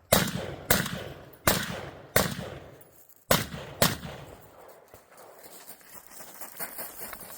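Six gunshots over about four seconds, at an uneven pace, each with a short echoing tail. After them come only faint small knocks and rustles.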